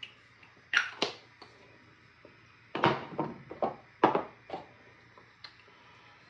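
Clear pump spray bottle of facial mist spritzed at the face: two short hissing puffs about a second in. A run of irregular knocks and handling noises follows between about three and four and a half seconds.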